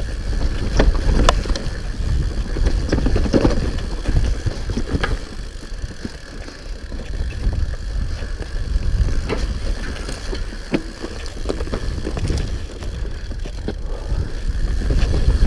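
Hope HB160 mountain bike descending a rocky trail: a continuous rumble of tyres and wind on the microphone, broken by frequent sharp clacks and rattles as the bike hits rocks and roots.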